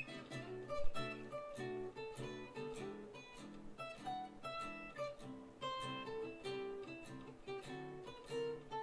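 Background music: acoustic guitar picking a steady run of notes.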